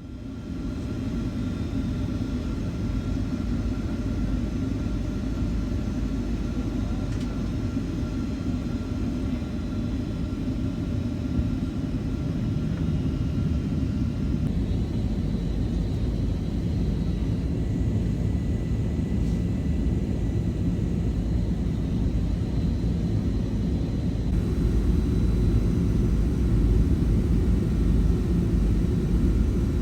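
Boeing 757-300 airliner in flight on its descent: a steady rumble of engines and rushing air, with a few faint steady tones above it, growing a little louder near the end.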